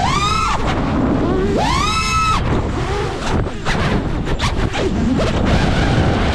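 Brushless motors and 5-inch propellers of an iFlight Nazgul Evoque 6S FPV quadcopter: a whine that swoops up in pitch twice as the throttle is punched, then cuts off suddenly about two and a half seconds in. This gives way to a choppy rush of air while the quad rolls and flips with the throttle chopped, and the motor whine rises again near the end.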